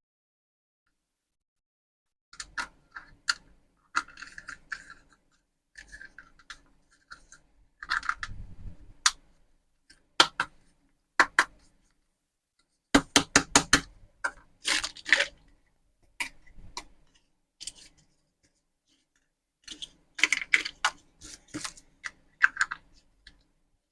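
Small toy pieces being handled and unboxed: irregular taps, clicks and short rustles, with a quick run of sharp clicks about halfway through.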